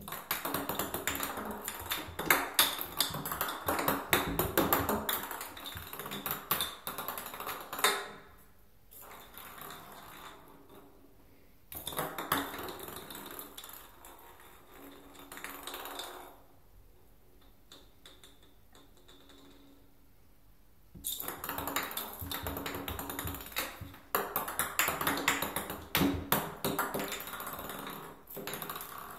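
Ping pong ball rolling and clicking around an empty bathtub as a kitten bats it, in bursts of several seconds with quieter pauses between.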